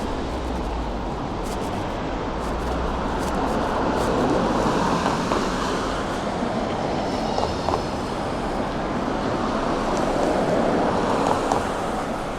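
Steady city-street noise with the rumble of passing vehicles, swelling twice as something goes by.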